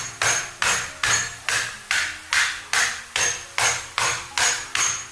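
Flat of a Chinese cleaver slapping down on long green chili peppers on a wooden chopping block, smashing them flat: a steady run of sharp slaps, a little under three a second.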